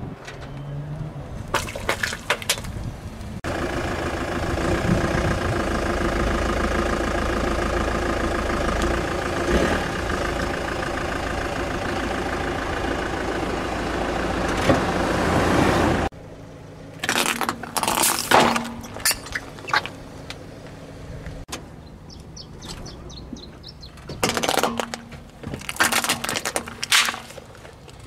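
A car's engine running steadily close by, then two clusters of sharp cracks and crunches as the tyre rolls over and crushes plastic toys. There are a few smaller cracks just before the engine sound.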